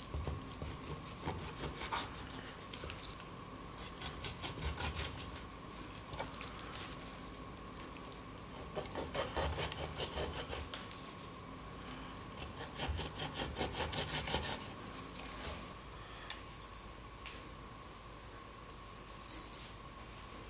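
Chef's knife sawing back and forth through raw chicken drumsticks on a wooden cutting board, in several runs of quick strokes with the blade rasping on the board. Near the end come two short hissing sprinkles of salt onto raw drumsticks in a steel bowl.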